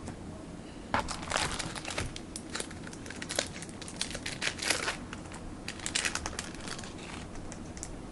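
A trading card pack wrapper being torn open and crinkled, with irregular crackling and rustling starting about a second in.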